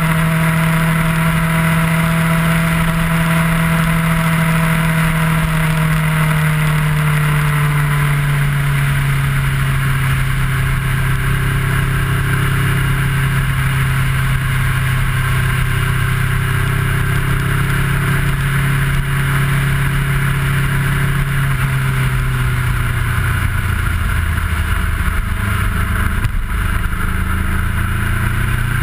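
Kawasaki ER-6f's 649 cc parallel-twin engine heard from an onboard camera while riding. The engine note falls gradually over the first several seconds and then holds steady. It drops a little further after about twenty seconds and rises again near the end, over a steady rush of wind and road noise.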